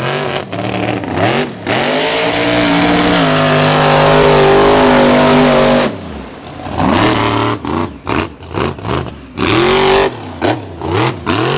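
Mega truck's engine revved hard and held near full throttle for several seconds, then cut off about six seconds in and blipped up and down in a string of quick, sharp revs.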